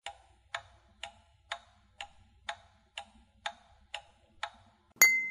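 Quiz countdown-timer sound effect: a clock-like tick twice a second, ten ticks in all, then a short ringing chime about five seconds in as the time runs out.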